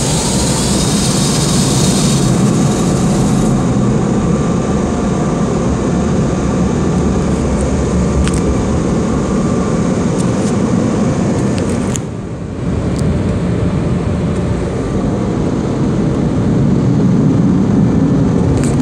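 Car wash air dryers blowing on the car, heard from inside it: a loud, steady rush of air with a short dip about twelve seconds in. An extra hiss in the first few seconds fades out.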